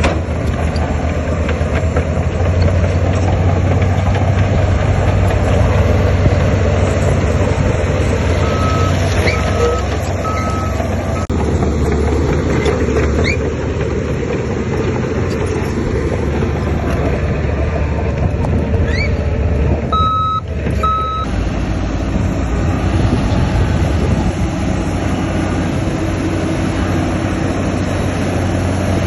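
Heavy diesel earthmoving machinery running steadily. A reversing alarm beeps three times about nine seconds in and again about twenty seconds in.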